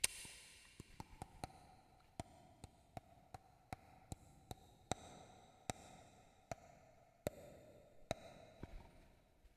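Faint series of sharp clicks with a short ring, about two a second at uneven spacing, from the K300 sound-effects board; it sounds like a ping pong ball dribbling across.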